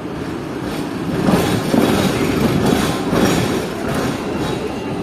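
Hong Kong double-decker tram running on its rails: a steady rumble with rattling and clacking, growing louder about a second in.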